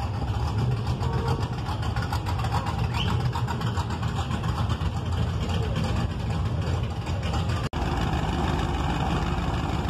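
Classic car engine running at a loose idle with a low exhaust rumble, the firing pulses steady throughout. The sound breaks off for an instant near the end, then carries on.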